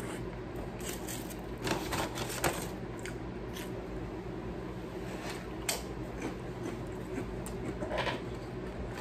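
Close-up eating sounds of a burrito being chewed: scattered soft clicks and crackles, a cluster about two seconds in and another near the end, over a steady low hum.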